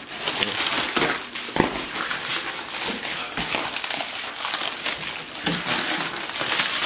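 Plastic stretch wrap crinkling and crackling as it is pulled and torn off a large shipping crate by hand.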